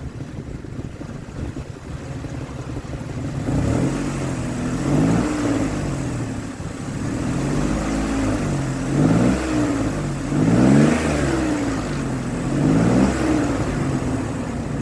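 2003 Ford Explorer engine idling, then revved up and down several times from about four seconds in, running smoothly after a bad ignition coil was replaced to cure the number two cylinder misfire.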